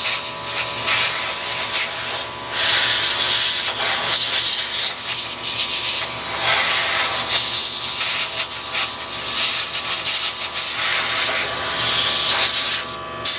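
Compressed air hissing from a blower nozzle in uneven gusts as it blows dust off a tube radio chassis, with a steady hum from a small oil-free air compressor underneath. The air pressure is set too low for the job.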